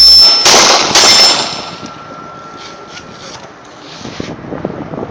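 Three 9mm shots from a Glock 17 pistol, about half a second apart, hitting steel targets. Each hit sets the steel plates ringing, and the ring fades out over the next couple of seconds.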